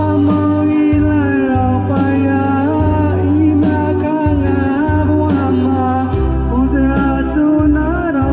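Male singer singing a Burmese pop song into a microphone over an instrumental backing track, his voice bending in pitch with vibrato above a steady bass line.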